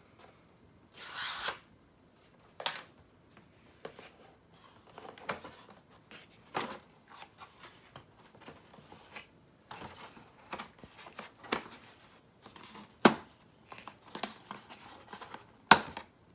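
Mouse pad box and its packaging being opened and handled by hand: tearing, rustling and scraping, broken by several sharp knocks or taps, the loudest near the end.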